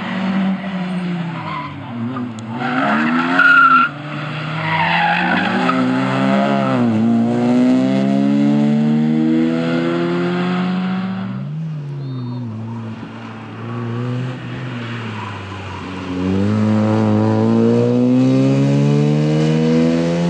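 Rally hatchbacks (a VW Golf II and Opel Astras) driven hard past on a tarmac stage, one after another. Their four-cylinder engines rev up in long climbs in pitch and drop at each gear change or lift for the corner. A short high tyre squeal comes about three and a half seconds in.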